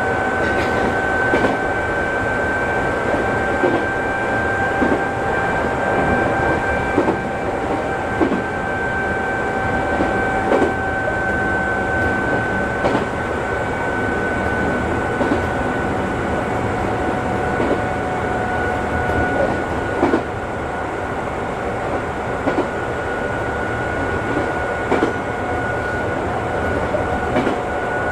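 Electric train running along the line, heard from inside the cab: a steady high whine over rumbling running noise, with the wheels clicking over rail joints about once a second.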